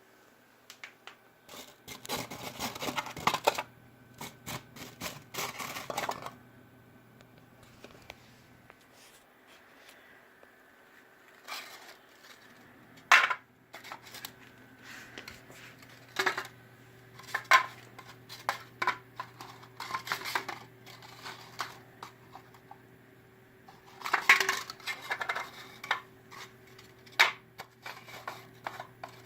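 Irregular handling noises: clatters, knocks and scrapes of objects being moved and set down on a hard surface, over a faint steady low hum that stops for a few seconds and comes back.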